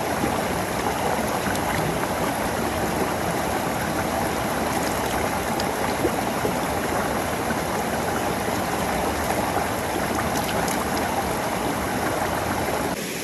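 Steady rush of a waterfall's running water.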